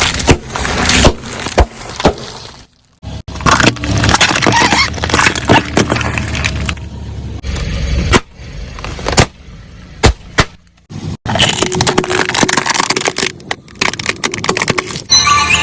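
Car tyres rolling over soda bottles and cans, crushing them with repeated crunching, cracking and popping, over the low running of the car. The sound breaks off abruptly twice, about three seconds in and again about eleven seconds in.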